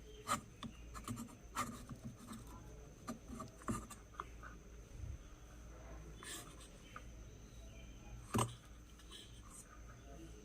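Small clicks, taps and faint scraping of hands and tools working on a home theatre amplifier circuit board while a burnt component is removed, with one louder sharp click about eight seconds in.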